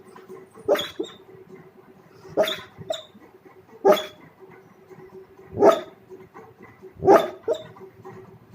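A sleeping dog giving short barks in its sleep: five in a row, about one every second and a half, some followed at once by a smaller second bark.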